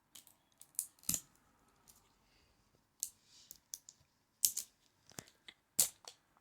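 Plastic packaging of an L.O.L. Surprise ball being handled and picked open by a child's fingers: scattered sharp clicks and small crackles at irregular intervals, a couple louder snaps near the end.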